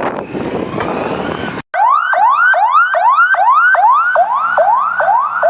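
Emergency vehicle siren in a fast rising yelp, about two and a half sweeps a second, each rising then dropping back sharply; it starts suddenly after a brief break, about 1.7 seconds in. Before it, loud noisy street commotion with voices.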